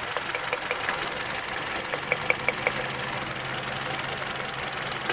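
Car engine idling steadily with a high hiss, plus a few faint ticks about half a second in and about two seconds in. Two of its ignition coils give only a weak spark, the cause of a misfire.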